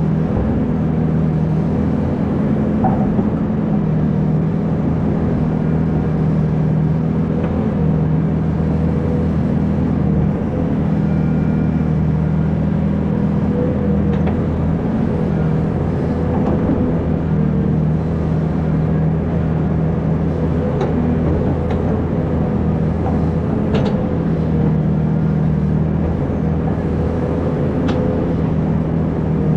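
Hydraulic excavator's diesel engine running steadily, with a few faint clicks and knocks over it.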